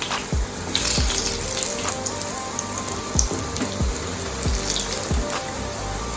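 Background music with a steady low beat, about one and a half beats a second, and a stepping melody, over a steady hiss.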